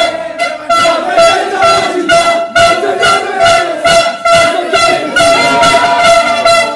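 Loud music with a steady beat of about two a second over held steady tones.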